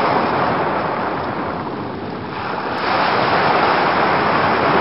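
Ocean surf: a loud, steady rush of breaking waves. It eases a little and then swells again about two and a half seconds in as another wave breaks.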